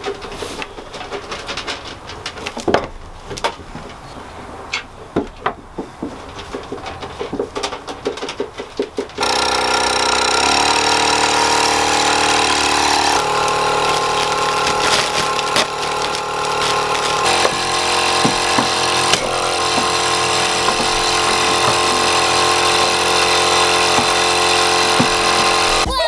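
Scattered clicks and knocks of tubing, plastic and a metal lid being handled. Then, about nine seconds in, the electric vacuum pump of a Hantop portable goat milking machine switches on suddenly and runs steadily. Its tone shifts a few times while the liner and lid are handled.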